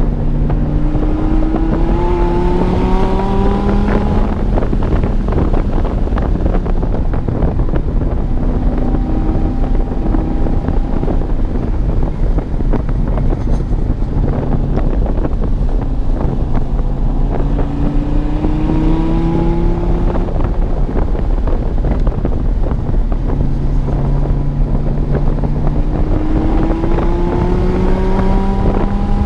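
A 2016 Dodge Viper TA 2.0's 8.4-litre V10 with aftermarket headers, driven hard on a race track. The engine note climbs under acceleration several times and settles in between, over steady wind noise on the microphone.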